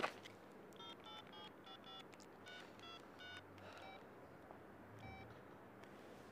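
Mobile phone keypad beeps as a number is dialled: about ten short beeps at an uneven pace, then the phone is lifted to the ear.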